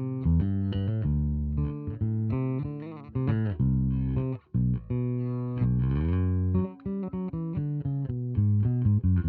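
Electric bass with a split-coil P bass pickup in the bridge position, plucked more lightly with the fingers and heard through an Ampeg SVT amp plug-in: a run of sustained notes with a few slides between them and a short break about four and a half seconds in.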